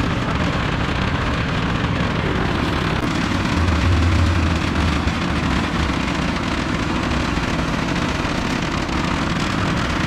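Portable tilting-drum concrete mixer running steadily, its drum turning, while wet concrete pours out of the tilted drum. A heavier low rumble swells about four seconds in.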